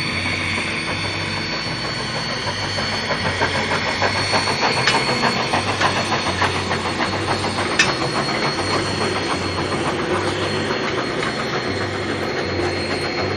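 Steam train running past: a steady rumble with steam hiss, and a rapid rhythmic clatter from the wheels and rails through the middle.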